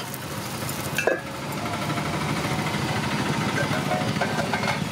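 A sharp metal clink of an iron appam pan being handled, about a second in, over a steady low rumbling hum from the stall's gas burner heating the pans.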